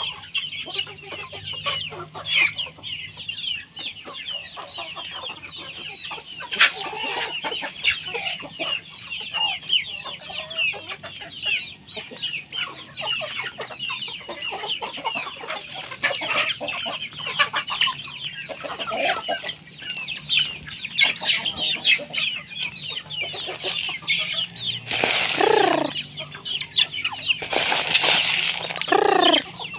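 A flock of free-range Philippine native chickens clucking and peeping continuously. Two loud squawks, each falling in pitch, come near the end.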